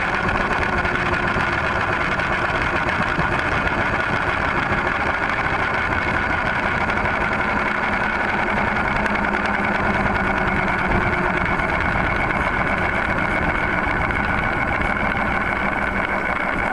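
Radio-controlled helicopter running at a constant speed, a steady motor and rotor whine that holds one pitch throughout.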